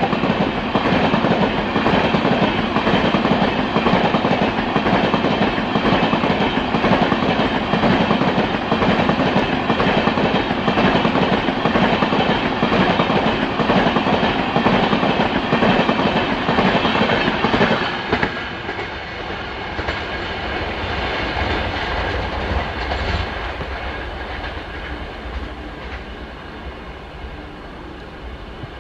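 LHB passenger coaches of an express train passing close at speed: a dense rush of wheel-on-rail noise with rapid clickety-clack over the rail joints. About two-thirds of the way through the noise drops suddenly to a quieter low rumble that slowly fades.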